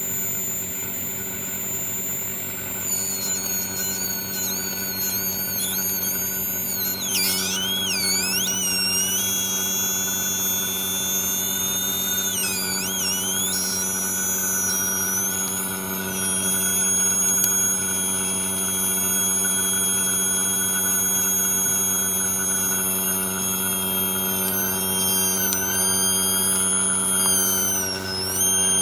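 Steady electrical hum from a phone-screen separator machine, with thin high whining tones that swoop down and back up in pitch several times in the middle and again near the end.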